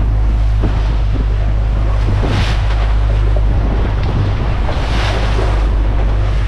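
Boat engine running steadily at trolling speed with a low drone, under water rushing along the hull and wind on the microphone; the water noise swells twice, about two and a half and five seconds in.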